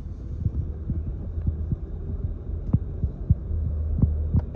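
Low, steady road rumble inside a moving car's cabin, with irregular light thumps.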